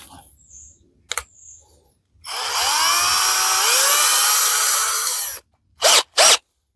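Parkside PBSA 12 D4 12 V cordless drill drilling a hole with a small bit: the motor runs for about three seconds, its pitch sagging and recovering under load, then gives two short blips of the trigger near the end. A single click comes about a second in.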